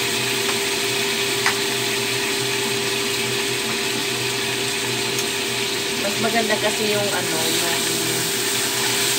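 Tofu sizzling in hot oil and sauce in a wok, a steady hiss; near the end a spatula scrapes in the pan, turning the pieces.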